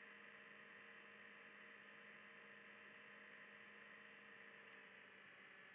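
Near silence: room tone, a faint steady hum and hiss with no distinct events.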